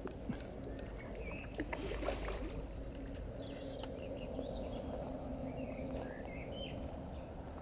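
Water sloshing and splashing as a hooked carp is played close to the bank and a landing net is put into the water, with a few sharp splashes a second or two in.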